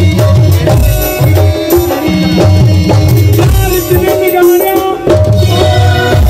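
Live Punjabi folk music playing an instrumental passage over a PA: a steady, fast drum rhythm under a held melody line.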